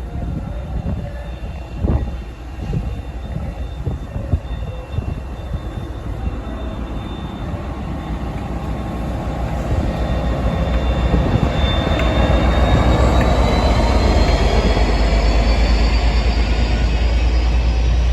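A train approaching and running past, its rumble building from about halfway through and staying loud, with a faint high whine that rises in pitch near the end.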